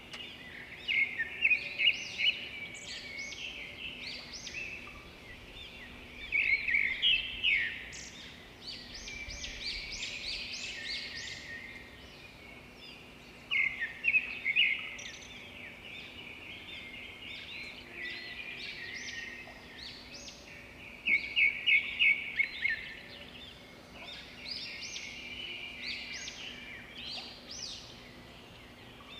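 Several small birds singing and calling outdoors: high chirping phrases and quick runs of repeated notes come back every few seconds, over a faint steady low hum.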